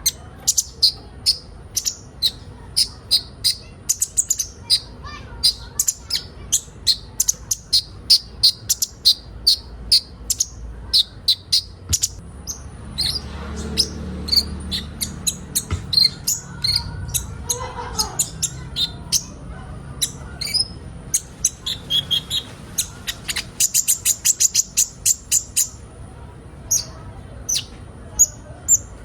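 Sunbird (kolibri ninja) giving sharp, high chirps, two or three a second, with a quicker run of calls about two-thirds of the way through.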